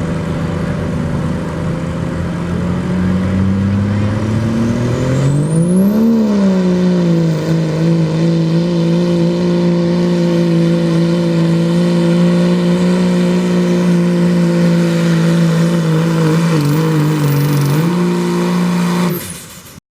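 Open-class diesel pulling truck's engine under full load: the revs climb to a peak about six seconds in, then settle and hold steady. The engine note dips briefly near the end and then fades away.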